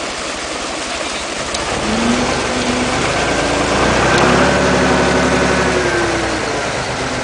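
Crane truck's engine revving up about two seconds in, holding at raised speed while the crane hoists a net basket of live carp out of the pond, then dropping back near the end.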